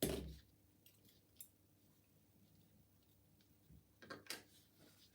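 Small metallic clicks and taps of a lock pick working the pins out of a Union oval lock cylinder: a knock at the start, a few faint ticks, then a quick cluster of clicks about four seconds in.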